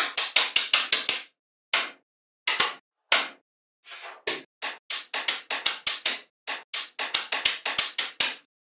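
Small magnetic metal balls clicking together as blocks of them are snapped into place. A quick run of sharp clicks comes first, then a few single clicks, then another long run of clicks.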